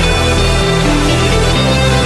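Background music with a deep bass line that steps between notes, playing under an outro animation.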